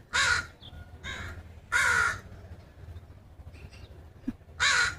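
American crows cawing: a few harsh caws with pauses between them, three loud and one fainter.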